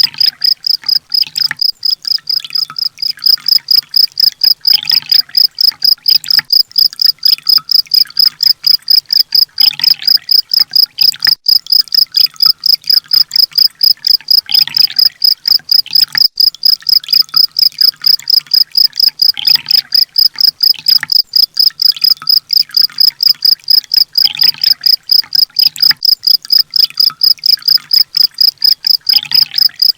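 A looped songbird-training (masteran) recording: loud cricket-like chirping at one high pitch, about four pulses a second. A fainter bird call recurs about every five seconds.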